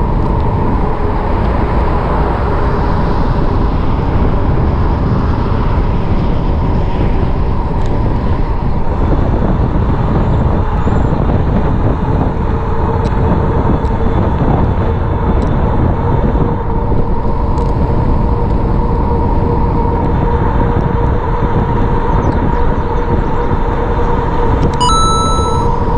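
Wind rushing over the microphone of a rider cruising downhill on an e-bike: a heavy, steady rumble with a faint steady whine under it. A brief high ring sounds near the end.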